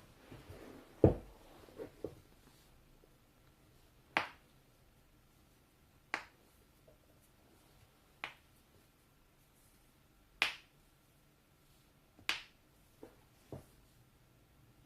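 Joints cracking: a cluster of pops about a second in, the loudest with a low thud, then single sharp cracks about every two seconds, and two smaller pops near the end.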